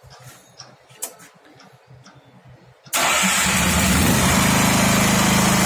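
Sakura Storm D9000E portable generator being started with its electric key start: a few faint clicks, then about three seconds in the engine fires at once and runs on steadily.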